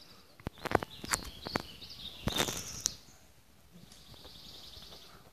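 Birds chirping and calling in a quick run of sharp, high notes from about half a second to three seconds in. A high, buzzy trill sounds before and after the run.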